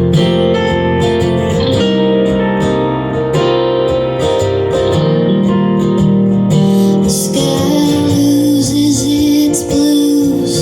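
Live song played on acoustic guitar, with a woman's singing voice coming in about two-thirds of the way through.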